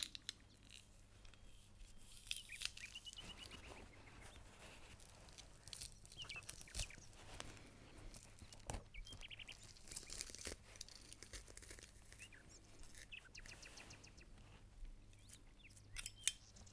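Faint crunching and squishing of garlic cloves being crushed in a metal garlic press, with scattered light clicks from the press.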